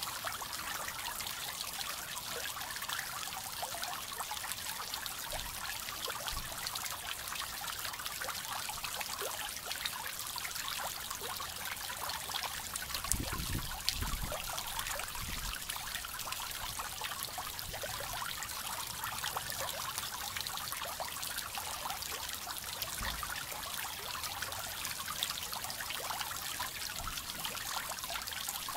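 Small pond fountain spraying fine jets of water that fall back onto the pond surface: a steady splashing trickle.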